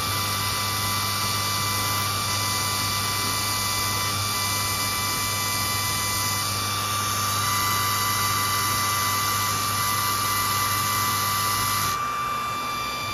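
Diode laser engraver at work: the air-assist pump's steady hum and rush of air under the whine of the stepper motors driving the laser head. About twelve seconds in, the hum and hiss stop, leaving a steady high whine.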